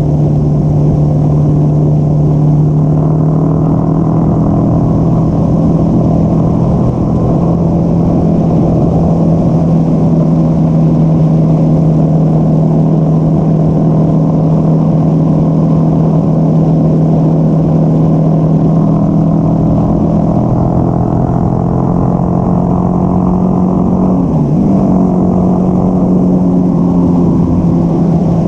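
Yamaha XT660X single-cylinder engine running steadily under way, a loud, even low hum with little wind hiss. The pitch dips briefly once late on, then returns.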